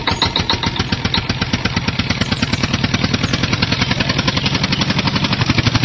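Tractor diesel engine running with a rapid, even chug.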